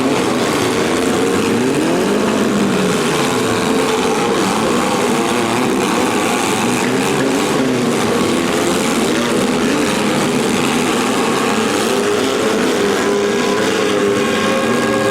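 Several demolition derby compact cars' engines running and revving together, their pitches rising and falling over one another. Near the end a steady held tone, like a horn, comes in over the engines.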